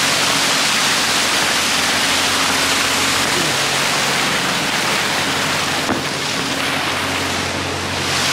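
Steady, loud rush of water pouring at a canal lock, with a faint low hum underneath.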